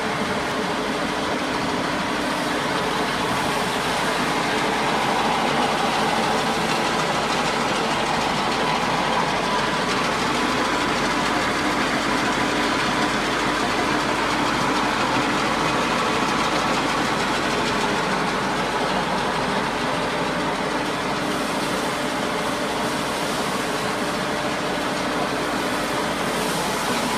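Small motor-driven flat-die pellet mill running steadily under load as it presses feed into pellets: a continuous mechanical running noise with a faint steady hum.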